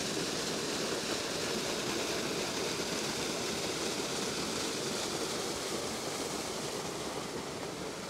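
Creek water pouring out of a culvert pipe and splashing into the pool below, a steady rush of water that eases slightly near the end.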